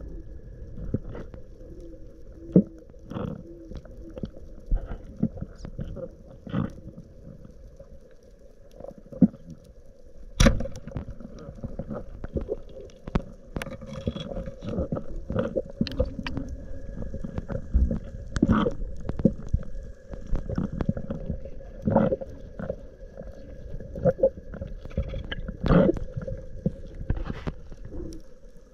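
Muffled underwater sound through an action camera's waterproof housing: low rumbling water movement with scattered knocks and clicks.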